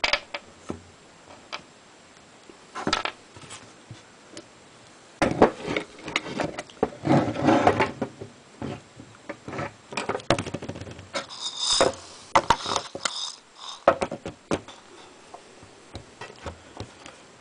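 Metal gun parts and small screws handled on a wooden workbench during reassembly of a side-by-side shotgun's action: scattered clicks and knocks, with a longer run of rubbing and clattering in the middle and a brief high-pitched sound about two-thirds of the way through.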